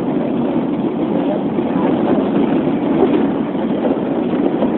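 Steady engine and road noise heard inside a moving car.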